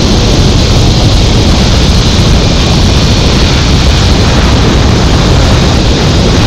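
Loud, steady wind rushing over an action camera's microphone as the rider speeds face-down along a long zip line.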